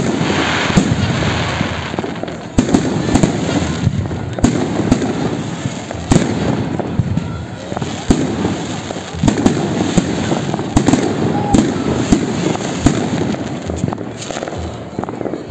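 Fireworks display: aerial shells bursting in a rapid, irregular string of loud bangs over a continuous crackle and fizz.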